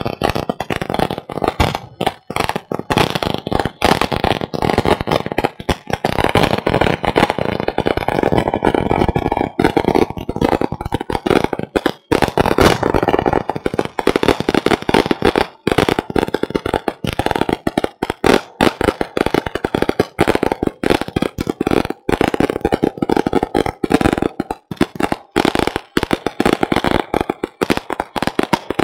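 Long strings of firecrackers hanging beneath a hot-air balloon going off in a loud, dense, unbroken crackle of rapid bangs.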